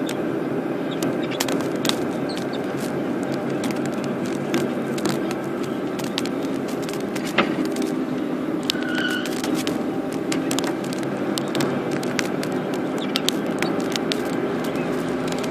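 Car engine and tyre noise heard from inside the cabin while driving steadily, with frequent small rattles and clicks. A brief squeak about nine seconds in.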